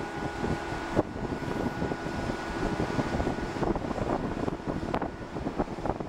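Wind buffeting the microphone over the steady running of crane machinery hoisting a clamshell grab, with a thin constant whine and scattered knocks and clatters.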